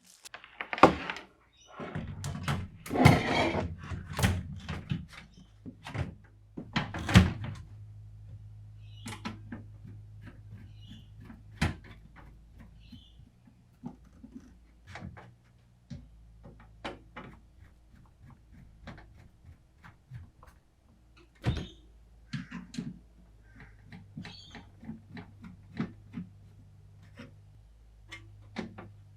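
Computer parts being handled and fitted during a PC build: scattered clicks, taps and knocks of plastic and metal. There is a rustling, scraping stretch around three seconds in, and a low steady hum underneath from about eight seconds on.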